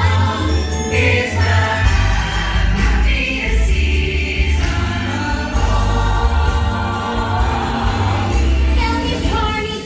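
Christmas music with a choir singing over a heavy, steady bass.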